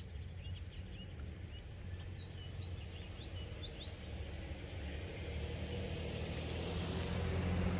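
Lakeside outdoor ambience: a low wind rumble on the microphone under a steady high, thin insect-like whine, with scattered short bird chirps a few seconds in. A low hum grows gradually louder toward the end.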